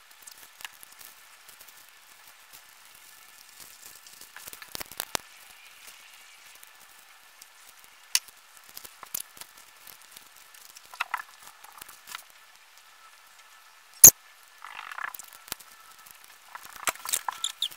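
Small crackles, rustles and clicks of hands handling washi tape and wrapping it around a pencil, with one sharp click about fourteen seconds in.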